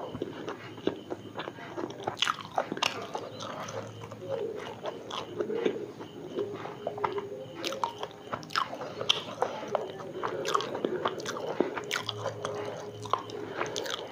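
Close-miked chewing of a deep-fried snack. Many short, crisp crunches and wet mouth clicks come irregularly one after another.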